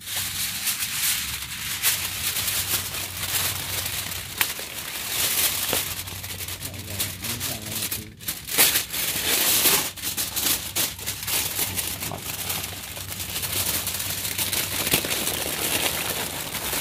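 Food wrapped in water-lily leaves grilling over an open fire: dense crackling and rustling, with louder pops about eight to ten seconds in.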